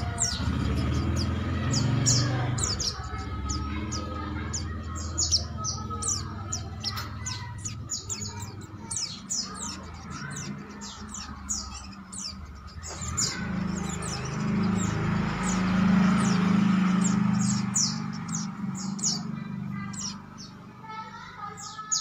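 Caged white-eyes (pleci) calling: many short, high chirps in quick succession, over a steady low background hum.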